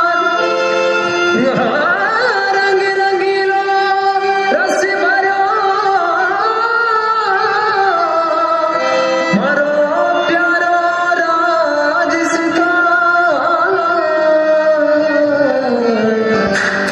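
Indian folk-style dance song: a singer's long, sliding held notes over instrumental accompaniment.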